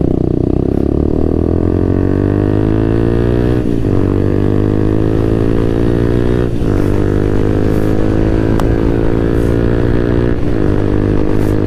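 Kawasaki Z800's inline-four engine pulling hard through the gears, its pitch climbing steadily and dropping sharply at each of three upshifts before climbing again.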